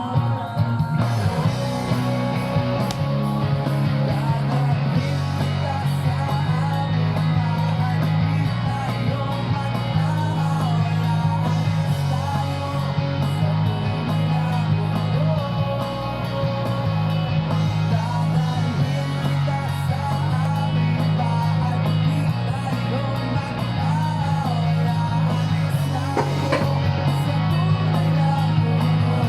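Background rock music with electric guitar, a steady bass line and a singing voice.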